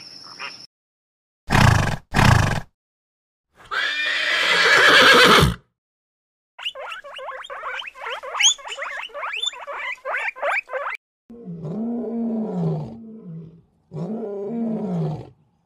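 A string of separate animal calls with silent gaps between them. First two short loud blasts and a loud call of about two seconds from an unseen animal. Then guinea pigs squeak rapidly for about four seconds, and a lion gives two long roars near the end.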